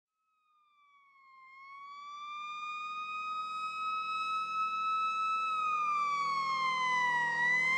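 A siren wailing, fading in about a second in and growing louder, its single pitch sliding slowly down, up and down again, over a faint low steady hum.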